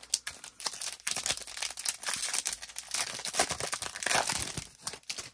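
A shiny foil trading-card pack wrapper being torn open and crinkled by hand: a dense run of crackling that stops suddenly near the end.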